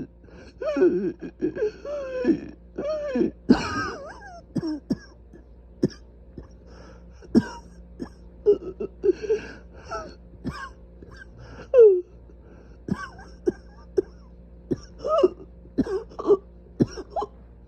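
Repeated short coughs and throat clearing from severely inflamed airways. They come at irregular intervals, several in quick clusters, some ending in a brief sliding voice sound.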